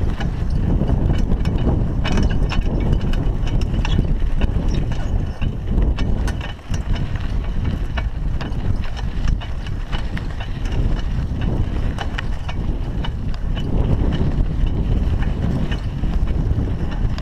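Raleigh Ascent mountain bike rolling over a rutted dirt track, its frame and parts rattling with frequent clicks and knocks, under a heavy rumble of wind on the chest-mounted action camera's microphone. Briefly quieter about six seconds in.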